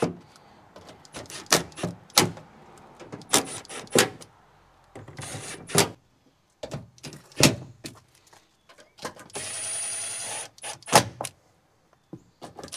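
Cordless impact driver snugging up the 8 mm screws of a plastic wheel well liner on its lowest torque setting. It runs in short spurts and once for about a second near the end, with sharp knocks and clicks from the tool and the liner between runs.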